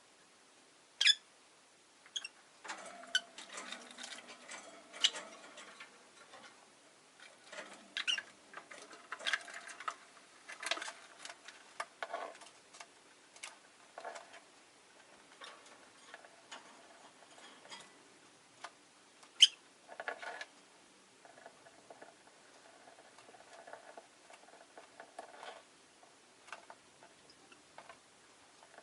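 Peach-faced lovebird's short, sharp chirps, two of them loud (about a second in and near the middle), with stretches of soft chattering and small clicks and scratches between them.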